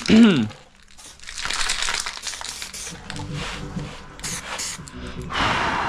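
Aerosol can of primer spraying in several hissing bursts, the longest and loudest near the end.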